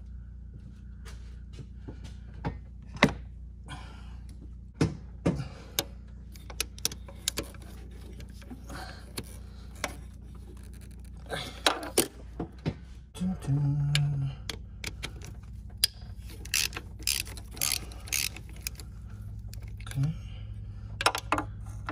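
Ratchet and socket on an extension working the thermostat housing bolts loose: scattered metal clicks and clinks of the tool, over a steady low hum.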